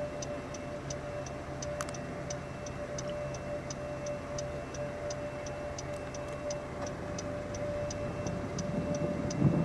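A vehicle's indicator flasher clicking steadily, about three clicks a second, over a faint steady hum in the car's cabin. Low engine and road noise rises near the end.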